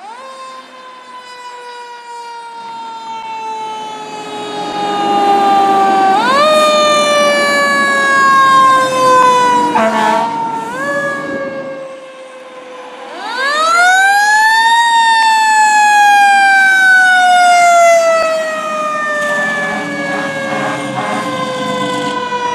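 Fire truck siren winding up and then slowly sliding down in pitch, sharply spun up again about six seconds in and once more around thirteen seconds, each time falling away over several seconds, with the truck's engine running underneath.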